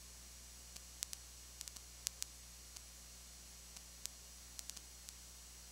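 Steady low hum and hiss of a recording carrying no live sound, broken by scattered sharp clicks; the loudest clicks come about one and two seconds in.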